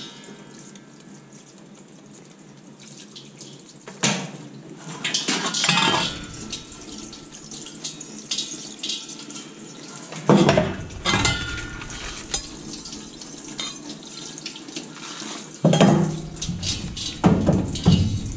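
Water spraying from a hose-mounted spray nozzle onto stainless steel milking-machine parts and into a stainless steel sink, a lukewarm rinse to get the milk off before washing with soap. Several metal clanks of the parts against the sink come through the spray, loudest about four seconds in, ten seconds in, and twice near the end.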